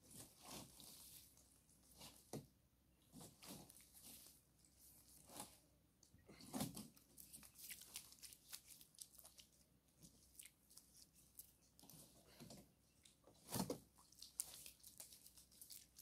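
Faint, irregular splashing and trickling of water poured by hand from a plastic jerrycan over hands and forearms and falling onto the leaves and ground, as in washing for ablution. Two louder splashes come a little under halfway in and near the end.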